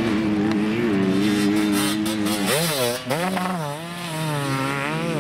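Enduro motorcycle engine running hard. Its pitch holds steady, swings quickly up and down with throttle changes about halfway through, then settles and climbs slightly toward the end.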